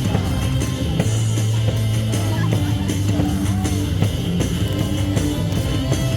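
Rock-style cheer music with guitar and a steady beat playing loudly over a baseball stadium's loudspeakers, mixed with crowd noise.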